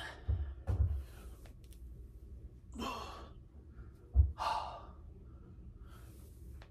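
A man exhaling hard through the mouth on squat reps, twice in the middle. There are a few dull low thumps, the loudest about four seconds in.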